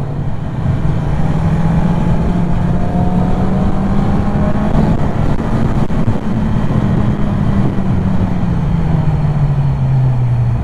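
Motorcycle engine running at speed over a rush of wind, its pitch climbing slightly and then easing down near the end.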